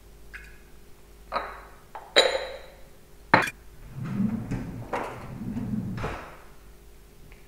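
A few sharp knocks and clinks of containers and a spoon on a kitchen bench, one with a short metallic ring, then about two seconds of scraping as a measuring spoon scoops dried yeast from its tin.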